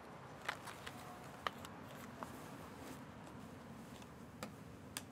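Several faint, short, sharp clicks and light taps over a low steady hiss; near the end, a mobile phone being set down on a wooden slatted bench.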